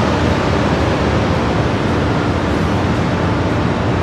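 First-generation Amtrak Acela Express train rolling slowly along the platform as it arrives: a steady rumble with a faint constant hum.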